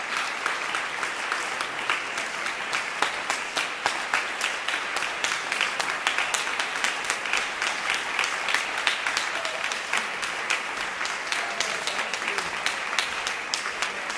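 Audience applauding steadily: dense, sustained clapping.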